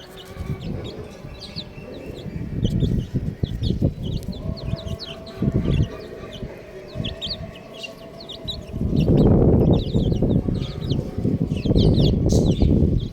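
Baby chicks peeping: many short, high chirps in quick succession throughout, over a loud low rumbling noise that swells about nine seconds in and again near the end.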